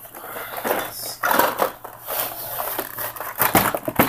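Cardboard packaging of a boxed model airliner being opened and handled by hand: continuous rustling and scraping with scattered small knocks.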